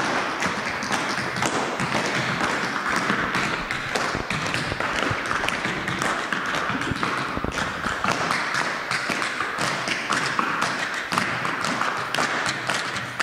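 A group of dancers' feet tapping and stomping on a wooden floor: a dense, unbroken run of taps and thuds from many steps at once.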